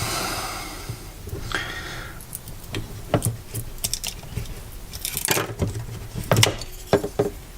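A sharp, pointed hand tool prying and scraping under a small cover plate on a Force FX lightsaber hilt, with scattered clicks and short scrapes as the plate works loose.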